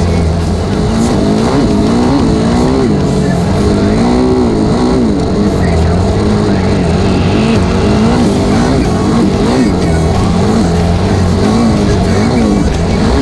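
Dirt bike engine revving up and down under a rider's throttle, its pitch rising and falling again and again as it rides along.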